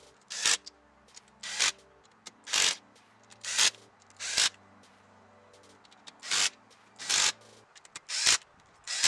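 Impact drill on its lowest setting, with a socket on an extension, spinning the crankshaft main bearing cap nuts down in nine short bursts about a second apart. The nuts are being run down snug in the torque sequence before final torquing.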